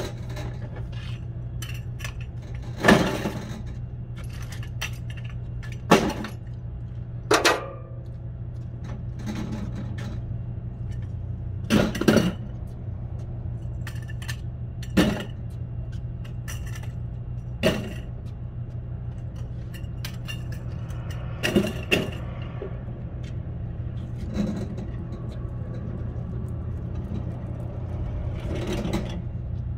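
Metal wire shopping carts clanking and rattling as they are pushed and nested into a row. Sharp clanks come every few seconds over a steady low hum.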